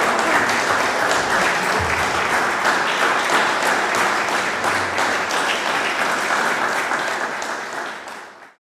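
Audience applauding: many people clapping steadily, fading out about eight seconds in.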